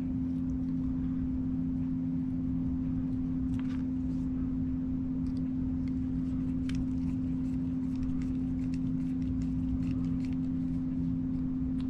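A steady low hum, with a few faint light metal clicks from a screwdriver tightening the firing-pin retaining screw in a Springfield trapdoor rifle's steel breech block.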